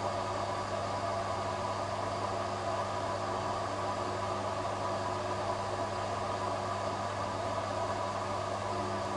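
Steady machine hum: a few constant low and mid tones over an even hiss, unchanging throughout.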